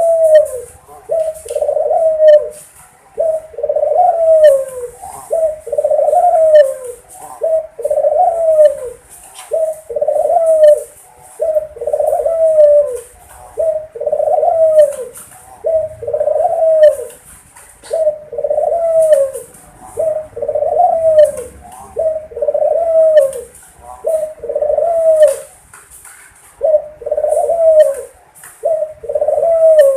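Puter dove cooing over and over, a run of short falling coos about one a second, pausing briefly a few times.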